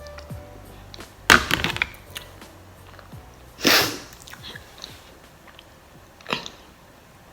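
Mukbang eating and handling noises: a quick run of clicks and clatter about a second in, a short rush of noise midway, and a single click near the end.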